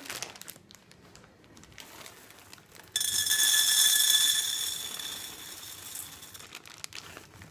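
Green coffee beans poured from a plastic bag into a stainless steel pan: a sudden dense rattle about three seconds in, with the pan ringing, trailing off over the next few seconds. Faint plastic-bag crinkling before it.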